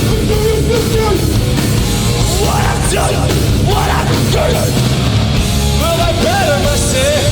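Live hardcore punk band playing loud and distorted, with heavy guitars and pounding drums, and some shouted vocals partway through.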